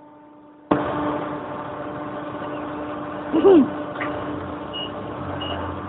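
A steady rushing noise starts suddenly about a second in and runs on. In the second half a vehicle's reversing alarm beeps about every two-thirds of a second.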